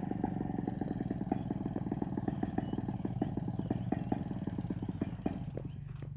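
Two-stroke chainsaw engine running at a low, putting idle, a rapid even pulse; the pulsing dies away about five and a half seconds in, leaving a low hum.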